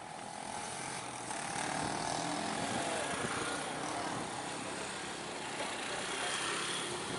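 Heavy truck's diesel engine running under load on a steep uphill climb.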